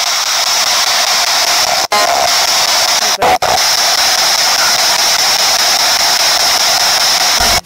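P-SB7 spirit box sweeping the radio band: a loud, steady hiss of static, cut by brief dropouts about two seconds in, twice just after three seconds, and again near the end, with short snatches of broadcast sound as it hops between stations.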